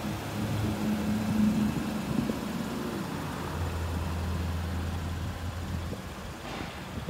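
A car engine idling with a steady low hum that shifts lower about halfway through, and a brief rushing noise near the end.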